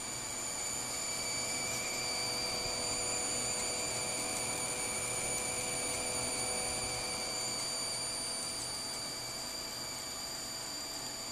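Faulty PC power supply (PSU) giving off a steady high-pitched electric buzz over a hiss. The buzz grows louder the more load is put on the supply; the fault seems to lie with its PCIe rails.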